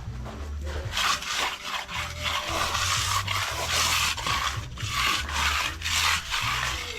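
Hand finishing tool scraping and rubbing across freshly poured wet concrete, in repeated strokes about two a second, as the surface is worked smooth.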